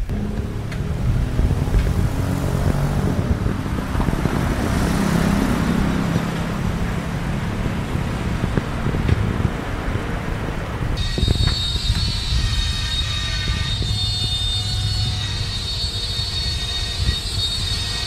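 Road traffic with a vehicle engine rumbling steadily. About eleven seconds in, the sound changes abruptly and steady high whining tones join the rumble.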